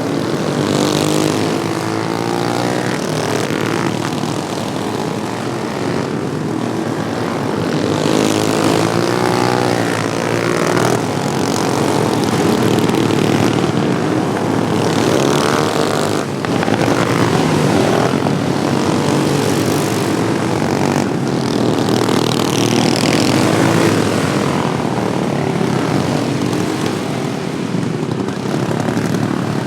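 Several modified Wheel Horse racing lawnmower engines running at high revs together, their pitch rising and falling as they race around the track.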